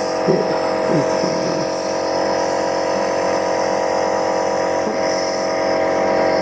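Electric compressor nebulizer running: a steady motor hum with an airy hiss as it drives air through the medicine cup to make the mist.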